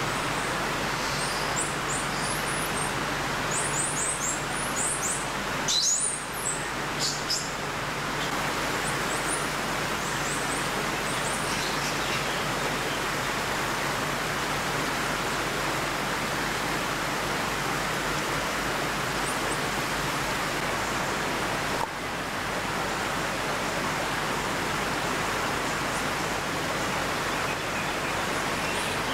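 Steady outdoor rushing noise, with a cluster of short, high chirps over it during roughly the first eight seconds.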